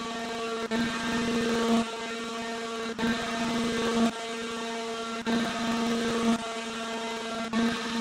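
Shapeoko XXL CNC machine's Carbide 3D router running at speed with the bit cutting into the wood stock: a steady whine with a strong hum under it. Its loudness and tone shift in a regular cycle about every second as the bit moves through its passes.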